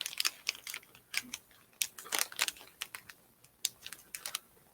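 Crunchy crackers being chewed close to the microphone: a run of irregular, crisp crunching clicks.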